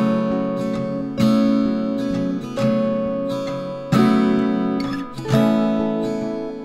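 Background music: acoustic guitar chords strummed and left to ring, a new chord struck about every second and a half, each fading before the next.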